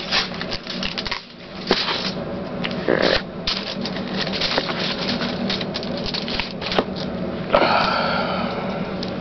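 Tin foil and tape being handled while the foil is taped onto cardboard: irregular crinkling, crackling and clicks, with a longer rustling burst near the end.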